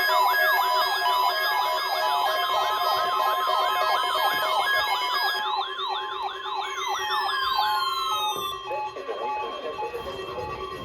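Electronic siren-style alert alarms from weather alert radios going off for the weekly test: a fast yelping sweep repeating about three times a second over steady tones. The sweeping winds down about eight seconds in, leaving the steady tones sounding.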